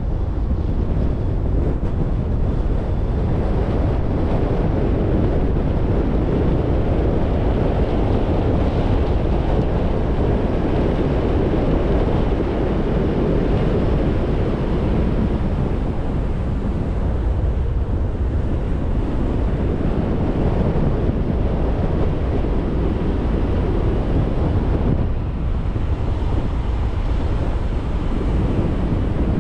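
A car driving along a paved road, with steady engine and tyre noise mixed with wind on the microphone.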